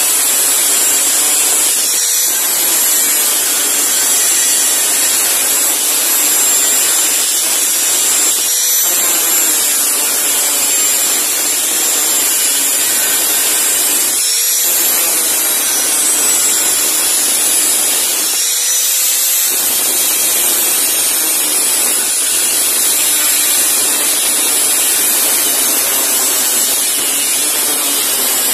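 Angle grinder with a thin cutting disc cutting into the steel blade of a sugarcane machete: a steady high whine over harsh grinding, easing briefly four times.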